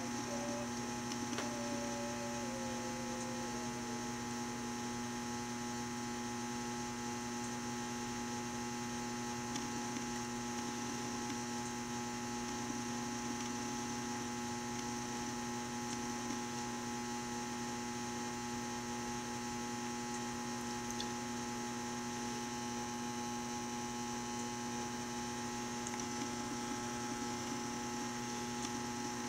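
Steady electrical mains hum, a constant buzz of several fixed tones that does not change.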